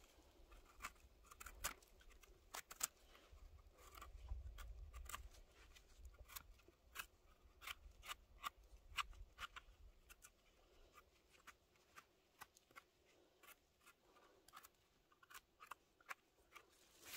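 Near silence broken by faint, irregular small clicks and snaps, one or two a second and sparser in the second half, with a faint low rumble about four to six seconds in.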